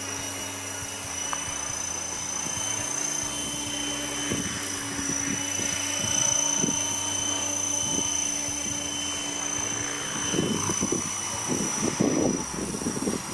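Trim Corporation X-500 radio-controlled model helicopter in flight, hovering and moving low: a steady high-pitched whine from its drive and rotor head over a constant whirr. Near the end an uneven, gusty rushing comes in and the sound grows louder.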